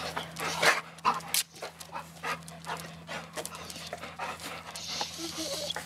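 Golden retriever panting, a quick run of breaths about three a second.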